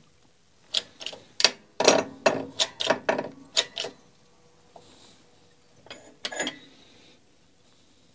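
Shop press being worked to press the balancer and bearing out of a Makita DBO380 sander's base: a quick run of sharp metallic clicks, about four a second, for about three seconds, then two more clicks about six seconds in.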